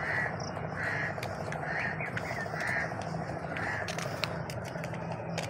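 A crow cawing, about half a dozen short, harsh caws spaced roughly a second apart, over a steady outdoor background.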